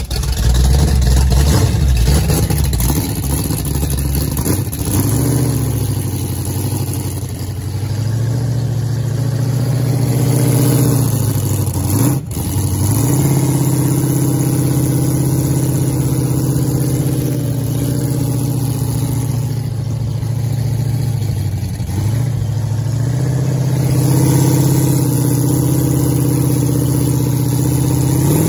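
Monster ride truck's engine running loudly, idling and being revved several times, its pitch rising and falling.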